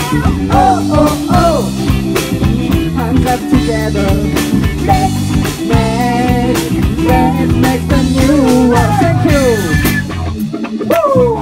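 Rock band playing live, with electric guitar, electric bass and drum kit together. The low end drops away briefly near the end.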